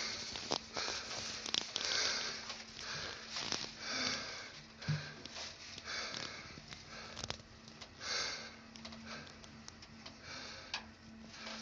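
Otis passenger elevator car travelling upward, its faint steady hum coming in about two and a half seconds in. Over it, soft hissing noises close to the microphone recur about once a second.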